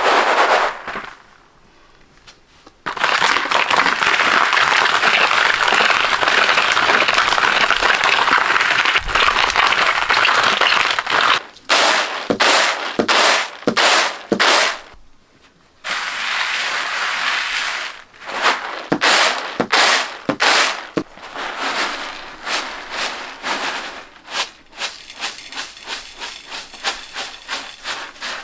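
Dried beans and grains rattling on a woven bamboo winnowing tray as it is shaken in long dense stretches, broken by separate sharp swishes of tossing. Near the end this thins to a patter of grains falling as the tray is tipped into a bowl.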